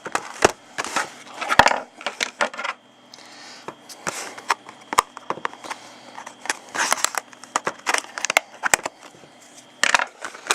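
A cardboard trading-card hobby box being cracked open by hand: crunching and tearing of cardboard, with many sharp clicks and rustling as the packs inside are handled.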